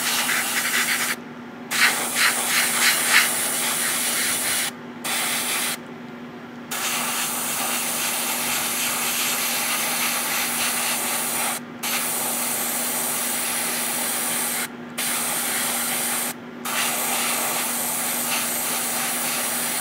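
Gaahleri GHAD-39 airbrush spraying paint: a steady hiss of air and paint that stops briefly about six times as the trigger is let off and pressed again. A steady low hum runs underneath.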